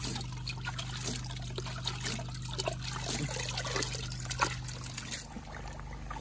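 Water swirling and trickling in a plastic gold pan as the sediment is washed down, with small splashes. A steady low hum runs underneath and stops about five seconds in.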